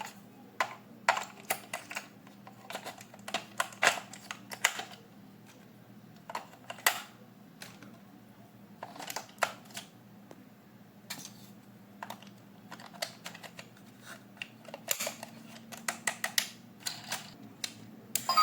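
Irregular sharp clicks, taps and light rustles of hands handling toys and their plastic and cardboard packaging.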